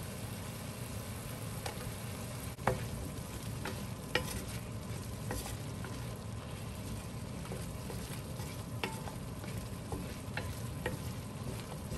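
Mushrooms and onion frying in a pan with a steady sizzle, stirred with a utensil that clicks against the pan now and then. The loudest knock comes about two and a half seconds in.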